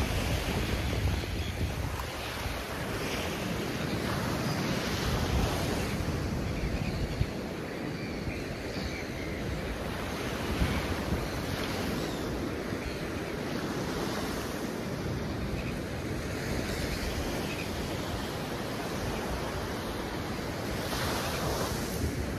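Surf washing on an open beach, a steady rush that swells and eases, with wind buffeting the microphone.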